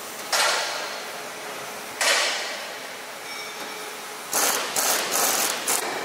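Workshop metal clanks: a sudden bang about a third of a second in, another at two seconds, and a quick run of them near the end, each dying away as it rings through a large factory hall, over steady background noise.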